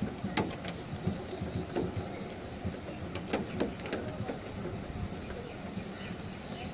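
Storm wind buffeting the microphone as an uneven low rumble, with a few scattered sharp taps.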